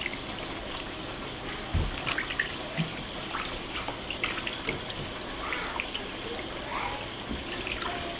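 Hands swishing and rubbing small dried fish in a plastic basin of water, with scattered splashes and drips as handfuls are lifted out: the fish are being rinsed of salt and dirt.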